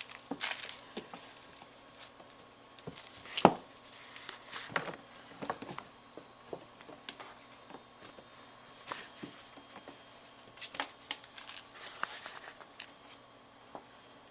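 Kittens at play: scattered light patters, scratches and rustles of paws and claws, with one louder thump about three and a half seconds in.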